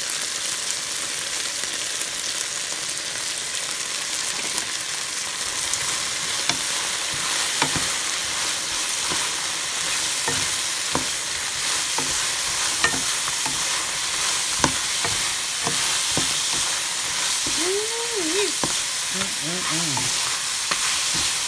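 Crawdads sizzling in hot oil in a frying pan as they are stir-fried with shredded ginger: a steady hiss, with the stirring utensil knocking against the pan every second or so. A few short squeaky sounds come near the end.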